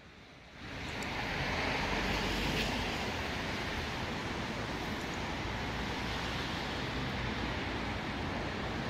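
Steady city background noise from a river footbridge at night: an even rush of distant traffic, fading in about half a second in.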